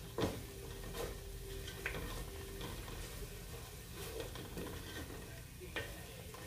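Spatula stirring ground spices frying in a little oil in a cooking pan, a low sizzle with a few sharp knocks of the spatula against the pan. The spices are being slow-fried (bhuna) with ginger-garlic paste.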